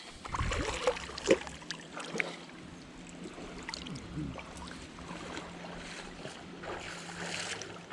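Shallow river water moving and lapping, with low wind rumble on the microphone and a few faint clicks and knocks.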